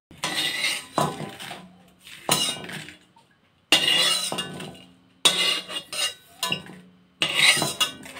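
A metal knife blade scraping and clinking against the inside of a metal wok, in about five separate strokes, as dried red chillies are scraped out of the pan.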